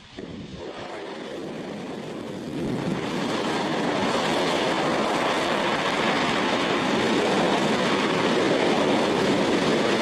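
A hydrogen-oxygen rocket engine firing on a test stand: a steady, loud rushing noise that builds over the first two or three seconds and then holds.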